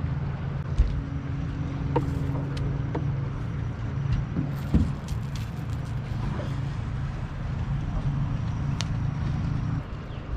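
Boat's outboard motor running steadily at low speed, then shutting off near the end. A few sharp knocks and clicks sound over it.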